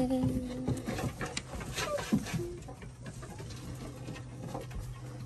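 A flock of laying hens moving about in a wooden coop on a wood-shavings floor. Many small scattered scratching and pecking clicks mix with a few short, soft clucks, and a drawn-out low call fades out in the first second.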